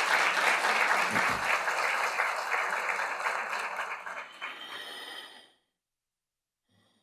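Audience applauding, a dense patter of many hands clapping that thins out over its last second and cuts off suddenly about five and a half seconds in. A brief low thump sounds about a second in.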